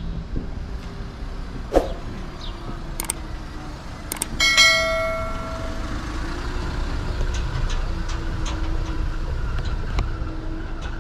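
Steady city street and traffic noise, with a single bell strike about four seconds in that rings on for about a second and a half. There is a sharp knock about two seconds in.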